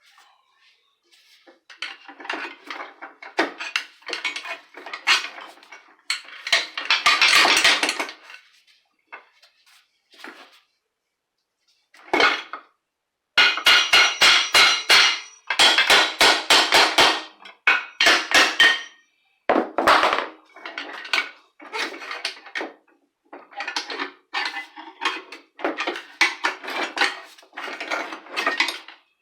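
Metal parts of an aluminum floor jack clanking and rattling as it is taken apart by hand. Irregular bursts of knocks and scrapes, loudest with ringing clanks between about 13 and 19 seconds in.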